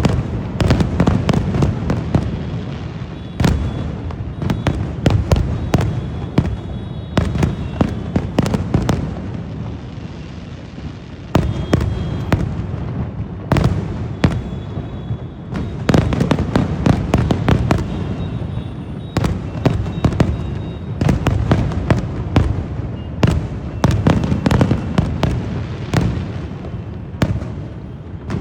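Fireworks going off: rapid, irregular bangs and crackles in dense clusters, over a continuous low rumble of echoing booms.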